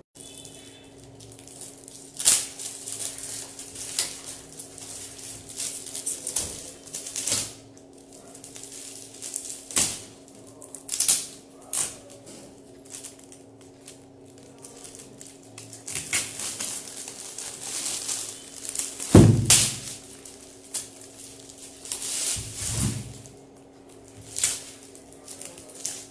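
Metallic foil gift wrap crinkling and tearing as it is pulled off a large framed board, in irregular crackly bursts. A heavy thump comes about 19 seconds in and a lighter one about 23 seconds in.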